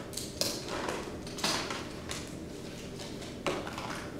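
A few short, irregular scraping or rasping noises, about four in all, the loudest about a second and a half in, over a steady low room hum.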